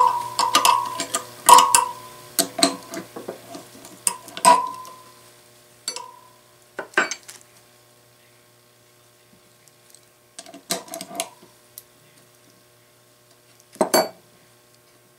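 Metal wheel spokes and hand tools clinking against each other and the hub, with short metallic rings: a quick run of clinks in the first few seconds, then a few scattered knocks, one loud one near the end. A faint steady hum runs underneath.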